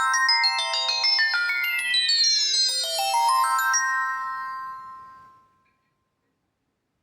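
Preset ringtone of a Reeder P13 Blue smartphone: a bright chiming melody of quick runs of notes that fades away about five seconds in.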